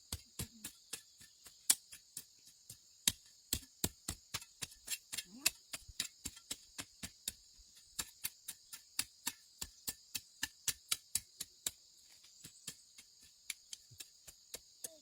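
A rapid, uneven run of sharp snapping clicks, two to four a second, over a steady high-pitched insect chorus.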